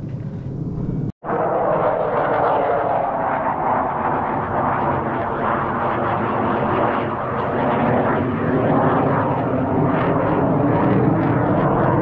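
Military fighter jets flying overhead, their engine noise loud and steady. The sound breaks off abruptly about a second in and returns at full strength.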